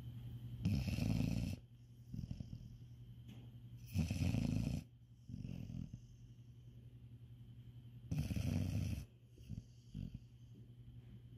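Domestic cat snoring in deep sleep: three loud snores about four seconds apart, each just under a second long, with softer breaths in between.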